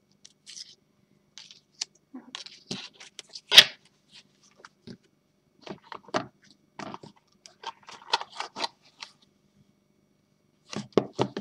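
Stiff oracle cards handled by hand: a scatter of short clicks, taps and scrapes of card against card, the loudest about three and a half seconds in and a quick run of them near the end.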